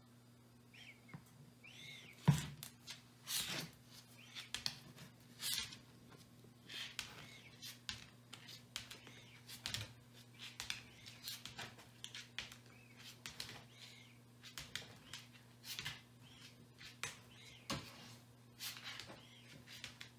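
Leopard tortoise walking on a ceramic tile floor: its claws click and scrape against the tiles in an irregular series, one or two a second, over a faint steady low hum.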